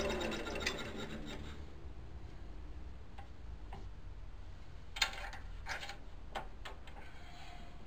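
A few scattered light metal clicks and taps from hands working the stopped metal lathe's chuck, the loudest about five seconds in.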